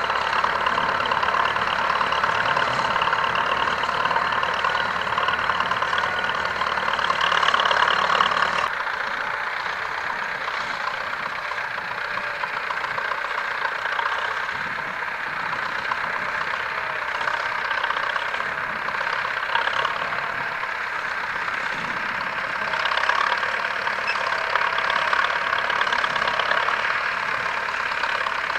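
Belarus T-40 tractor's air-cooled diesel engine running steadily while ploughing. About nine seconds in the sound changes abruptly, becoming quieter with less bass.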